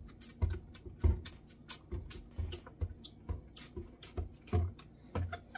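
Trigger spray bottle of homemade cleaner squeezed again and again onto a kitchen sink: a quick spritz two or three times a second, many with a dull knock of the trigger.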